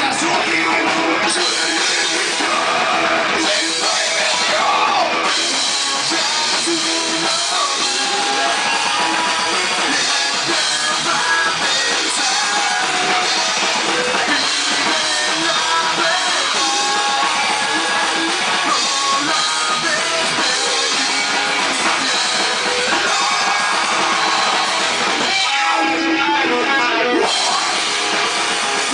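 Rock band playing loudly: distorted electric guitar over a full drum kit, dense and steady.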